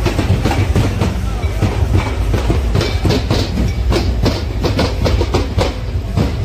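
Loud, fast drumming with a heavy bass underneath, mixed with the noise of a large crowd.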